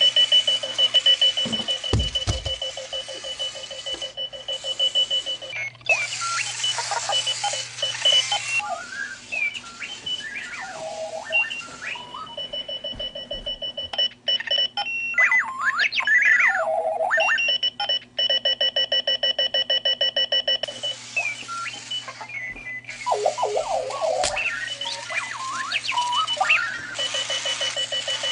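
Clocky runaway alarm clock sounding its alarm: a loud, random string of electronic beeps, chirps and warbles that slide up and down in pitch, with stretches of fast pulsing, over a rough hiss in places. It cuts off abruptly at the end.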